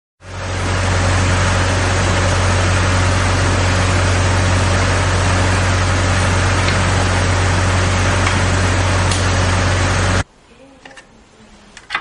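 Avant compact loader's engine running steadily with a strong low hum, cutting off suddenly about ten seconds in. After that come faint clicks of the hydraulic multi connector being handled, with a sharp click near the end.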